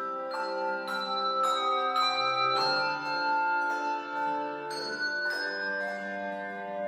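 Handbell choir ringing a slow tune in chords. Each struck chord rings on into the next, a new one about every half second, with one chord held for about two seconds in the middle.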